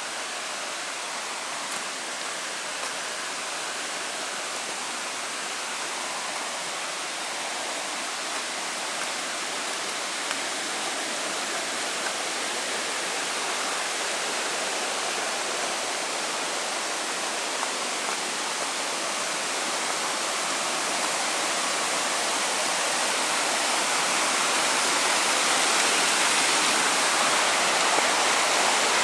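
Steady rush of stream water flowing over rocks, growing gradually louder.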